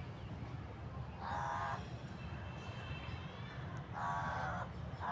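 A crow cawing: short harsh calls about two and a half seconds apart, two in full and a third starting at the end, over a steady low rumble.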